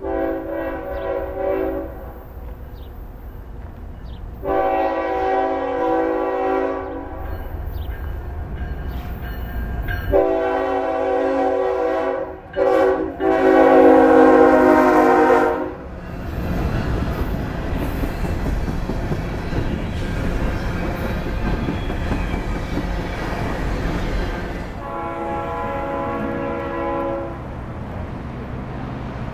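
Norfolk Southern ES44AC's Nathan K5HL five-chime air horn sounding a series of long blasts as the train approaches and passes. The diesel locomotives and the loaded trash cars then rumble and rattle past on the rails, with one more horn blast near the end.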